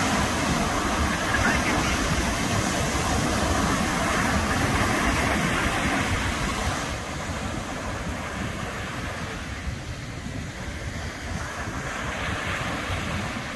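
Ocean surf breaking and washing onto a sandy beach, with wind rumbling on the microphone. Louder for the first half, easing off about halfway through.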